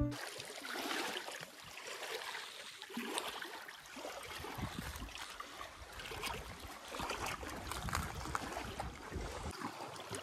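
Small waves lapping and splashing against a rocky lake shore, a low, even wash of water with scattered small splashes.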